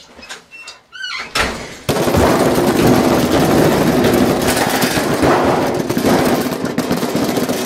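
A few knocks and a short squeak, then from about two seconds in a washing machine pounding and rattling violently without a break. The camera resting on its lid shakes with it.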